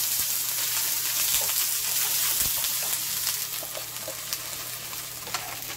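Chopped okra sizzling as it fries in oil in a pan, stirred with a wooden spatula, with a few light clicks. The sizzle grows quieter near the end as a steel lid goes over the pan.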